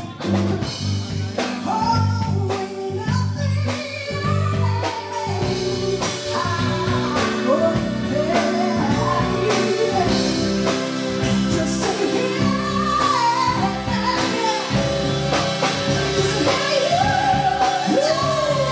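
Live band playing with a woman singing lead into a microphone, backed by drums, electric guitar and keyboard, with a steady beat throughout.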